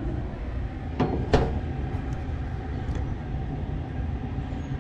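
Steady low rumble with a faint hum over it, and two sharp knocks about a second in, a third of a second apart.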